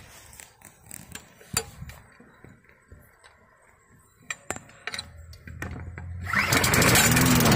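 Small single-cylinder engine of a 20-inch, 3.5 hp Yard Machines push mower starting up about six seconds in and running with a fast even beat, after a few quiet handling clicks. The mower starts but cuts out again a few seconds later, which the owner puts down to a worn spark plug with too wide a gap.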